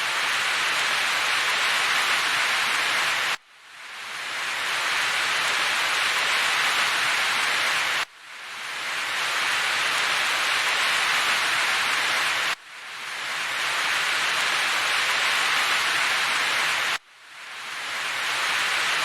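Steady hiss of heavy rain. It cuts out abruptly four times, about every four and a half seconds, and swells back within a second each time, like a short rain recording played on a loop.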